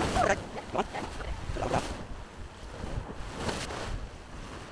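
Surf washing against shoreline rocks, rising and falling in several surges, with wind buffeting the microphone.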